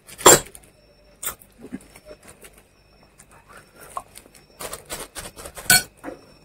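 Short knocks, clicks and mouth noises of a man eating at a table: a sharp loud sound just after the start, a smaller one about a second later, and a cluster of clicks near the end with another loud sound among them.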